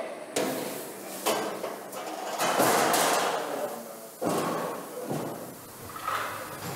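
Slaughterhouse equipment handling a pig carcass, likely the hoist and dehairing machine: a series of sudden metal bangs and clatters, about four in all. The loudest and longest comes about three seconds in, a rattling crash.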